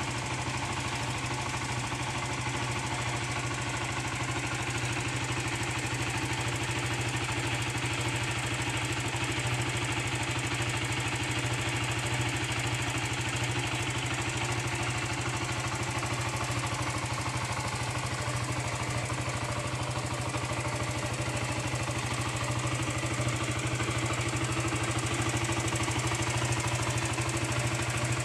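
Zontes U1 250cc single-cylinder motorcycle engine idling steadily through its exhaust, growing slightly louder near the end.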